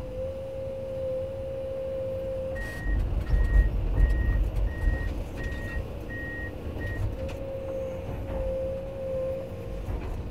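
Komatsu PC210 diesel excavator working, with a steady whine from the machine. About two and a half seconds in, its travel alarm beeps seven times, roughly one beep every 0.7 s, over a heavy low rumble, and then the whine returns.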